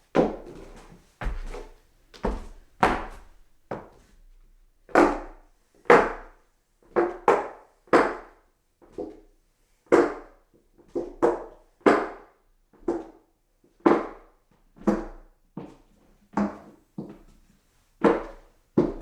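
Footsteps walking up hollow wooden stairs: a long run of hollow wooden thuds, about one to two a second, uneven and sometimes in quick pairs.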